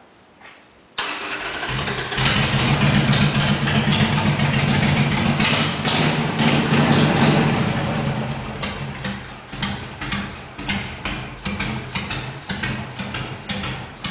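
Harley-Davidson Sportster 883's 45-degree V-twin starting about a second in through newly installed aftermarket exhausts, running at raised revs, then settling after about eight seconds into a slow, loping idle with uneven pulses: the characteristic "potato" sound.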